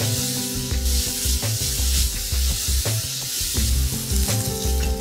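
Finely chopped onions and cumin seeds sizzling in hot oil in a wok, stirred with a wooden spatula, under background music with a steady bass beat.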